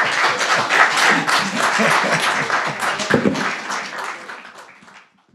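Audience applauding, fading out about four to five seconds in.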